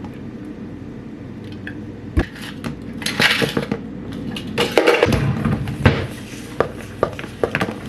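Household handling sounds: objects clinking and knocking on a hard surface, with brief rustling, hissing stretches about three seconds in and again near five seconds.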